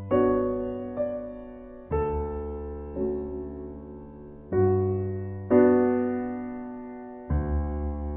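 Slow, gentle piano music: soft chords struck about once a second, each ringing out and fading.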